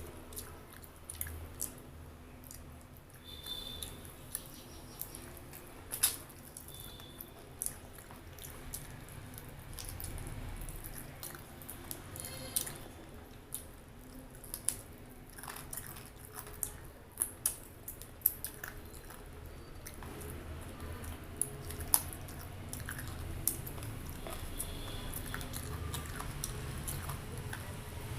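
Close-miked chewing and mouth sounds of a person eating, with short wet smacks and clicks at irregular intervals.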